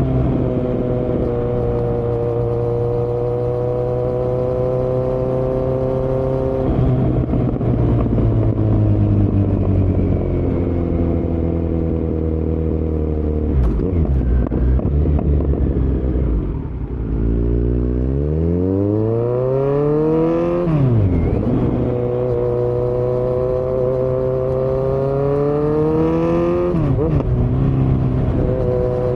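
2018 Kawasaki Z900's inline-four engine, uncorked through Delkevic headers and a Yoshimura muffler with no dB killer, under way. It runs at a fairly steady pitch, then falls away low. About seventeen seconds in it climbs hard in a steep rising rev, with a quick drop and rise at a gear change, settles, and changes gear again near the end.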